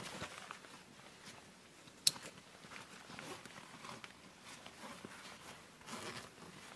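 Rustling and handling of a backpack as gear is rummaged through, with one sharp click about two seconds in.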